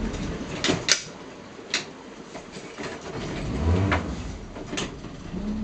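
A boat engine dies right at the start, leaving a quieter stretch broken by several sharp clicks and knocks; it is running again near the end. The engine stalls when accelerated, the fault the owner is showing.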